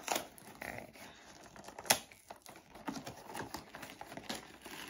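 Cardboard toy box being pried and torn open by hand: a run of small crinkles, taps and clicks from the packaging, with one louder click about two seconds in.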